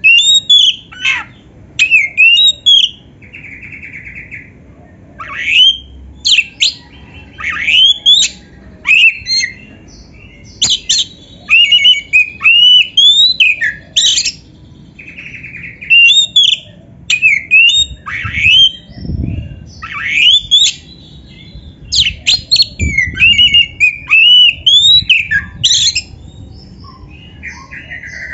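Oriental magpie-robin (kacer) singing a run of loud, quick whistled phrases. The notes sweep up and down and come in short bursts, with a few buzzy notes between.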